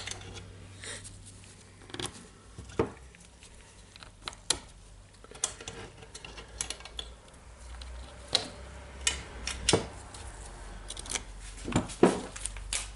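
Scattered light clicks and taps of small metal parts being handled as an angle grinder's gear head is turned by hand and fitted back together.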